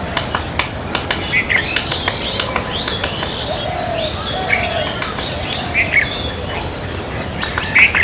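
Fulvous-breasted woodpecker pecking at a tree trunk, a scatter of irregular sharp taps, with birds chirping and some lower calls around it.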